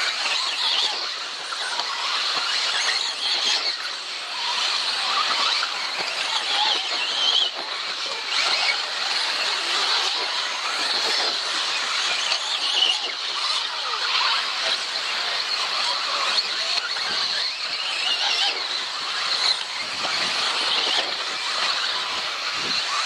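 Radio-controlled 4WD off-road buggies racing: a steady high-pitched whine from their motors, with many short rises and falls in pitch as the cars speed up and slow down.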